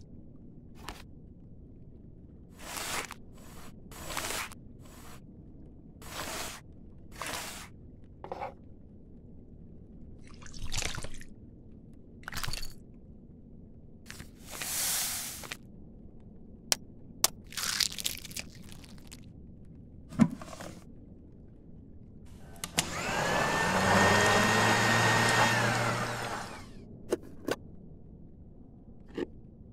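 Plastic Lego bricks clatter in a dozen or so short, separate bursts as they go into a plastic blender jar, followed about halfway through by a short pour from a bag. Near the end a countertop blender runs for about three seconds, its pitch rising as it starts, holding steady, then falling as it stops.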